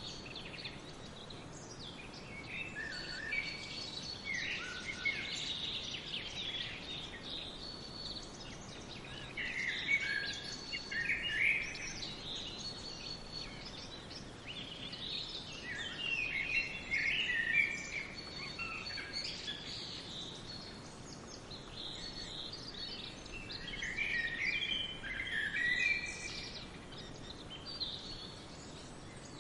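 Songbirds chirping and twittering in bouts of quick, high notes with short pauses between, over a faint steady outdoor hiss.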